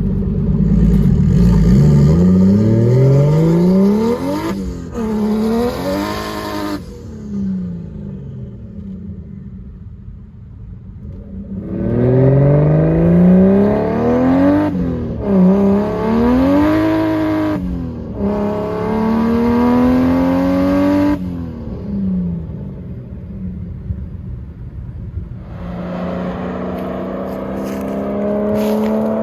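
Turbocharged BMW 325i inline-six with a straight-piped exhaust, accelerating hard through the gears. The engine note climbs, dips briefly at each shift and climbs again. It eases off after about seven seconds, pulls again through two more shifts from about twelve seconds, eases off once more, and starts another climb near the end.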